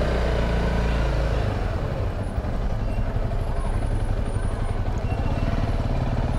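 Honda CRF300 Rally's single-cylinder engine running at low speed, creeping through slow, congested street traffic.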